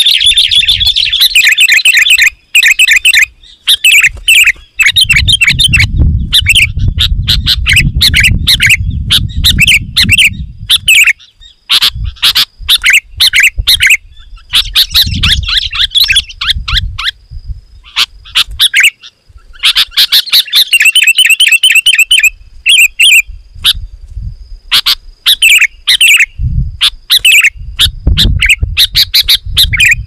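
Sooty-headed bulbuls singing loudly and persistently, in dense runs of quick, repeated whistled phrases broken by short pauses. A low rumble sits under parts of the song.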